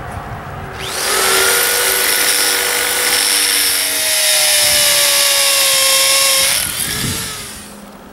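Hammer drill with a 3/16-inch bit boring a hole into a chimney's concrete crown for a concrete screw. It starts about a second in, runs steadily for about six seconds with a motor whine, then winds down.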